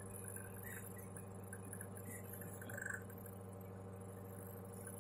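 Refrigerant recovery machine running with a steady low hum, faint short high chirps scattered over it.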